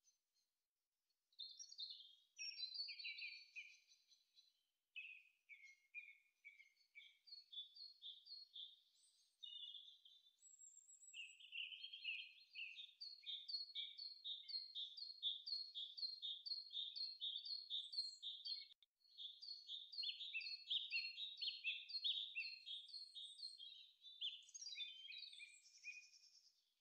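Birdsong: a bird singing long runs of quick, high, downward-sweeping notes, with a few short pauses between phrases.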